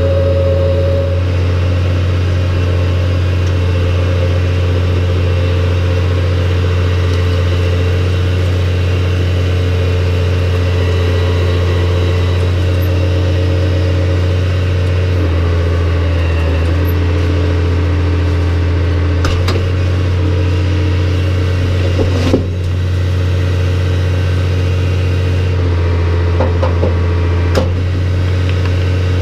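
New Holland T6030 tractor's diesel engine running steadily under load while driving a rock picker's PTO rakes, with a few sharp knocks in the later part.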